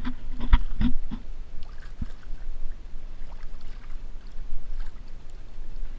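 A loaded kayak being hauled through dense reeds in shallow water: reed stems brushing and scraping along the hull. A few short knocks on the hull come in the first second, and one more about two seconds in.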